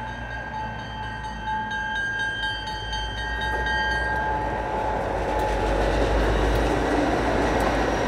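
Diesel freight locomotives of a Canadian Pacific train rumbling past a grade crossing, the noise of engines and wheels on the rails growing louder about halfway through as the train draws level. A steady high ringing tone sounds over it in the first half and fades out.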